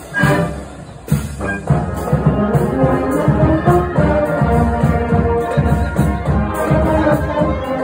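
Marching brass band playing in the street: trumpets, trombones, saxophone and sousaphones over a steady beat. The band is softer for about the first second, then plays at full volume.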